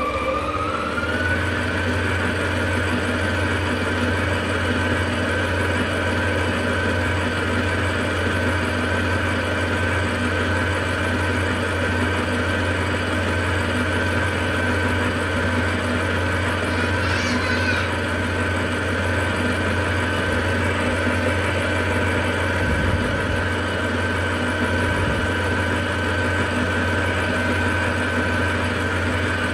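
Electric stand mixer running steadily, its wire whisk beating whipped egg whites and sugar as egg yolks are beaten in. The motor's whine rises a little in pitch about a second in as the speed is turned up, then holds steady over a low hum.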